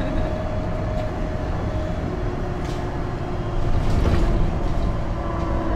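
MAN Lion's City city bus's diesel engine and Voith automatic drivetrain running, heard from inside the passenger cabin: a steady hum with a steady tone that drops lower about two seconds in, getting louder from about three and a half seconds in.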